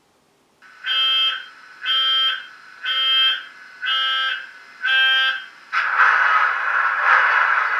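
A Class 66 locomotive sound decoder, playing through a model locomotive's small speaker, sounds five pitched warning beeps about a second apart. About six seconds in, a louder steady hiss starts.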